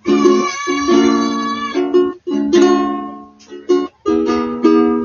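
Ukulele strummed chords without singing: about eight strums, each starting sharply and left to ring, with a couple of quick strums close together in the second half.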